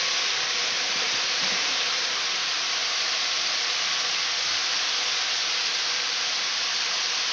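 Mixed vegetables frying in oil in a wok over a high gas flame: a steady, even sizzle.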